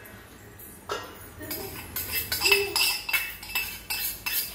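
A steel ladle clinking against stainless steel bowls and pots as a tempering is spooned out. It is a run of quick metallic taps with a ringing note, starting about a second in.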